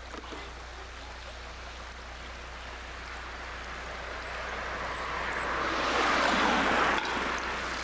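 Shallow rocky creek running over stones, a steady rush that grows louder over a few seconds and then drops off suddenly near the end.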